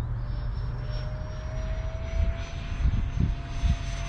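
Whine of an 80mm nine-blade electric ducted fan driving a model jet on a fast pass, its pitch climbing slowly. A few short low thumps come through in the second half.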